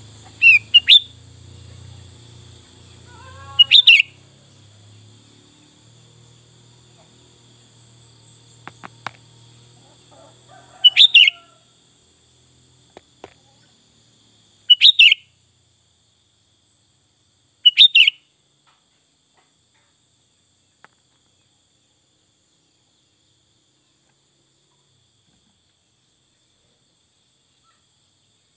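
Sooty-headed bulbul (kutilang) giving short, loud bursts of song, five of them a few seconds apart, over a steady high insect trill that fades out about two-thirds of the way through.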